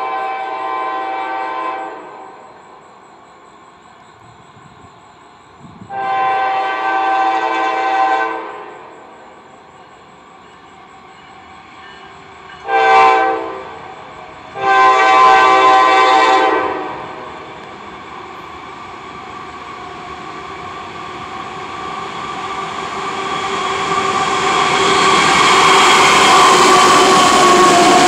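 Diesel freight locomotive sounding its multi-chime horn in the grade-crossing pattern: two long blasts, a short one and a final long one. Then the locomotive's engine and the train's wheels grow steadily louder as it approaches and comes alongside.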